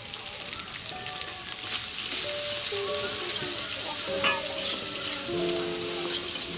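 Sliced onions frying and sizzling in a metal kadai, stirred with a metal spatula; the sizzling grows louder about two seconds in.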